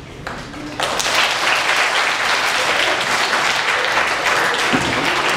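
Theatre audience applauding, breaking out suddenly about a second in and going on steadily.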